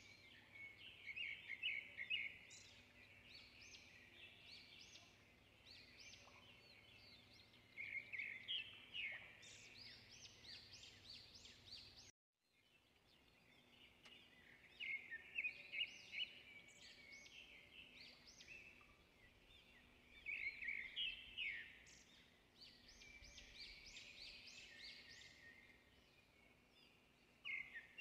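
Birds chirping and trilling in short clusters of quick high calls, with quieter chirping between them. The sound cuts out briefly about twelve seconds in, then the same pattern of calls comes round again, as from a looped birdsong recording.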